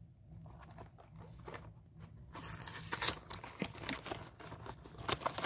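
Plastic snack wrappers and a cardboard box being handled, crinkling and rustling. The crinkling is light at first, then busier and louder from a little past the middle.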